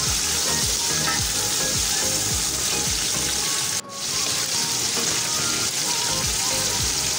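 Chicken strips and onions sizzling in hot oil in an aluminium pot, stirred with a wooden spatula, over faint background music. The sound drops out for a moment a little past halfway, at an edit.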